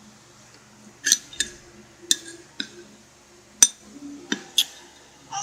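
About seven short, sharp clicks or clinks at irregular intervals, over a faint steady low hum.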